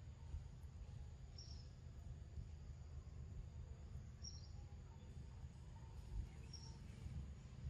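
Faint forest ambience: a short high chirp sounds three times, about every two and a half seconds, over a low steady rumble.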